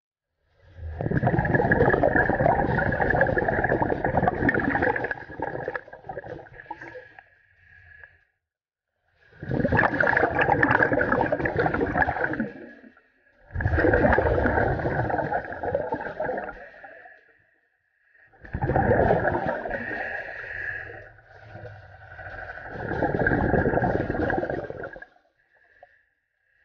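Scuba diver's exhaled bubbles rushing out of the regulator underwater, in four long bursts of a few seconds each with short quiet pauses for the in-breaths. A faint steady high whine runs underneath.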